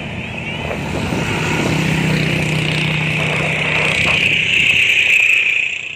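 A vehicle driving on a road, heard from on board: a low engine hum through the middle and a steady high hiss that grows louder and then drops off sharply near the end.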